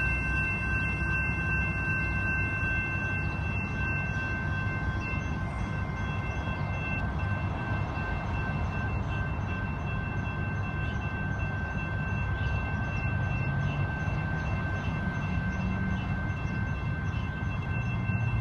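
Double-stack intermodal freight train's well cars rolling past: a steady rumble and clatter of steel wheels on rail, with a steady high ringing tone held over it.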